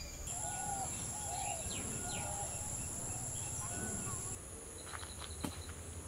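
Rural nature ambience: insects droning in steady high-pitched tones, with short chirping bird calls over them. The drone changes abruptly about a second in and again past four seconds, after which a fast run of ticks and a few clicks come in.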